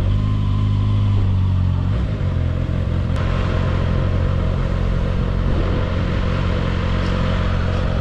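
Kawasaki ZX-6R inline-four engine running at low revs as the bike pulls away from a stop and rolls slowly. A steady hiss joins it about three seconds in.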